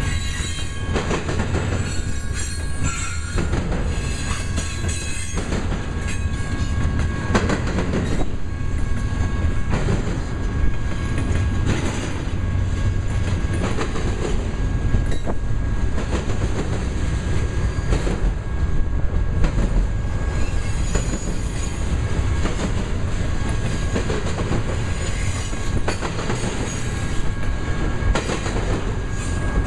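Double-stack intermodal well cars rolling past at close range: a steady, loud rumble of steel wheels on rail with frequent clicks as the wheels pass over the track.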